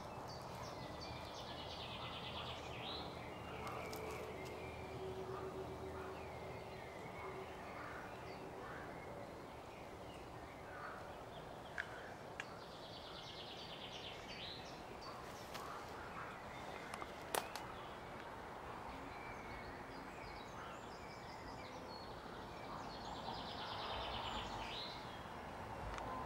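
Outdoor woodland ambience with songbirds: a fast high trill repeated about every eleven seconds, scattered short chirps between, and a few sharp clicks.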